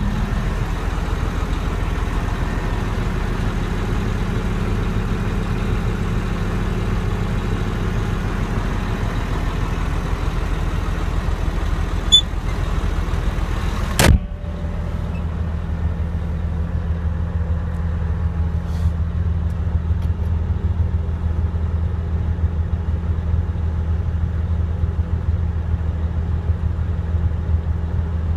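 Caterpillar D6T bulldozer's diesel engine running steadily with a deep, even drone. A sharp click comes about halfway through, after which the sound turns duller and the low engine note carries on.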